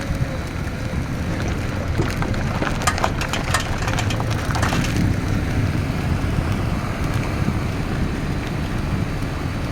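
2000 Honda Civic running with a steady low rumble, and a run of sharp clicks or rattles between about two and five seconds in.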